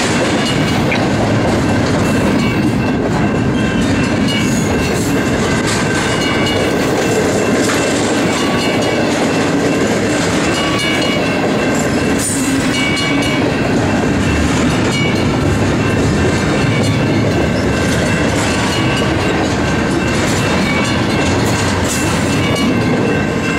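Double-stack container freight cars rolling past at trackside: a loud, steady rumble of steel wheels on rail, with a few faint, steady high ringing tones. The rumble eases slightly near the end as the last car passes.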